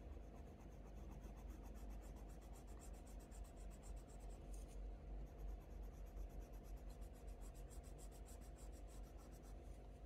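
Faber-Castell Polychromos coloured pencil scratching faintly across hot-press watercolour paper in quick short strokes, several a second, as fur is sketched in.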